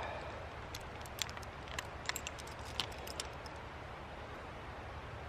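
Small sharp clicks and clinks of camp gear being handled and pulled off a carabiner, a quick cluster in the first three seconds, over a steady low outdoor rumble.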